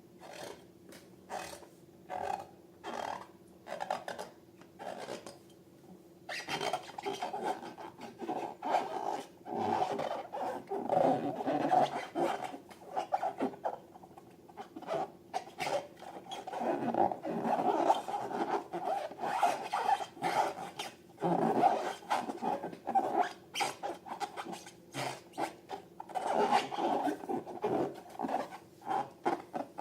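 Slime being squished and mixed, making wet squelching and smacking sounds. At first the squelches come one at a time, about one every three-quarters of a second; from about six seconds in they run together into denser squishing.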